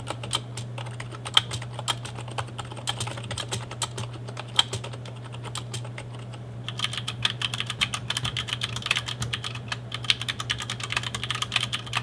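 Typing on a Rosewill Neon K51 keyboard's hybrid membrane-mechanical ('Mem-chanical') key switches. Scattered single keystrokes give way about six and a half seconds in to fast, continuous typing. The keys click more quietly than Cherry MX Brown switches.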